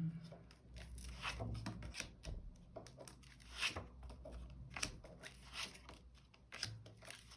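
Tarot cards being handled and turned over: a series of soft, irregular card slides and flicks.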